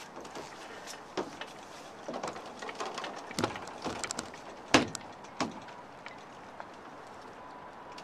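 Irregular knocks, bumps and clicks from a crew member's boots and knees on the hull and deck of a Cape Cod Mercury sailboat as they clamber onto the foredeck. The loudest thump comes about four and a half seconds in, then the boat settles to a steady low hiss.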